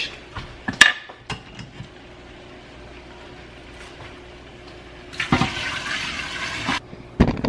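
Water poured from a saucepan into a large enamel stockpot: a steady splashing rush lasting about a second and a half near the end. A couple of light knocks about a second in.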